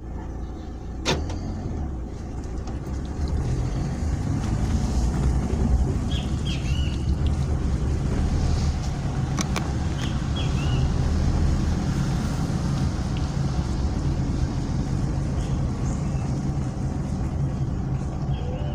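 Car driving slowly, heard from inside the cabin: a steady low rumble of engine and road noise, with a sharp click about a second in and another about halfway, and a few faint high chirps.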